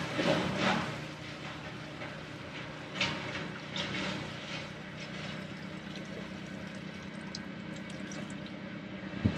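Old premixed fuel pouring and trickling from an upturned portable outboard fuel tank into a plastic tub, over a steady low hum, with a light knock about three seconds in.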